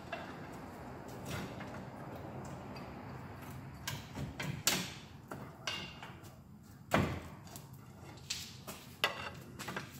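Metal brake and hub parts being handled at a truck's front wheel: a few seconds of handling noise, then a string of sharp clanks and knocks, the loudest about seven seconds in.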